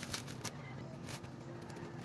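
Thin black plastic wrapping crinkling and crackling as it is handled and peeled open: a few sharp crackles in the first half second and another about a second in, over a faint steady hum.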